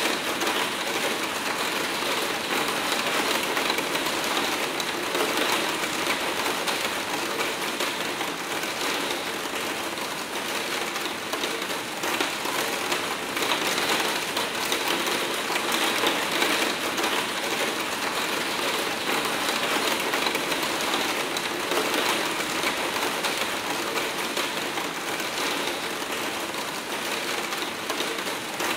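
Hard rain pelting steadily on a skylight roof window, a dense, even patter of drops striking the pane.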